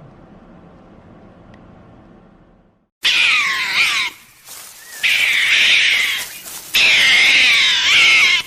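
A low, steady hum, then about three seconds in, three loud, drawn-out high-pitched animal cries with falling, wavering pitch.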